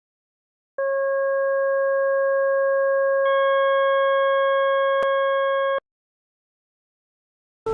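Computer-generated steady tone from the Desmos graphing calculator's sound function. It starts about a second in and stops cleanly near six seconds. Partway through, higher overtones are added and brighten it, and a single click sounds about five seconds in.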